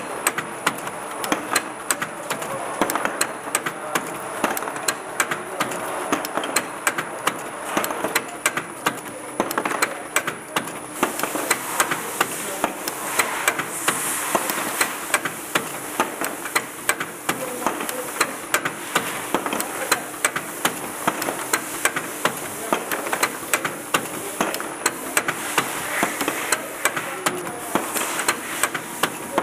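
Capcoder 570 bottle-capping machine running, a quick train of sharp mechanical clicks and knocks, about two or three a second, as the capping head and conveyor work through small plastic bottles.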